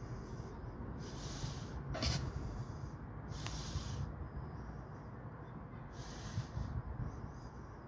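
A man breathing hard close to the microphone, three breaths about two to three seconds apart, as if catching his breath after exertion, over a low steady rumble. A sharp click about two seconds in.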